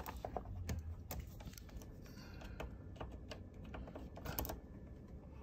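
Faint scattered clicks and taps of handling, as multimeter test probes are set against the metal terminals of an RV circuit breaker panel.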